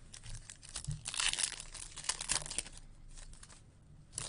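Trading-card pack wrapper being torn open and crinkled: a dense crackling rustle lasting about two and a half seconds, then quieter handling of the cards with one click near the end.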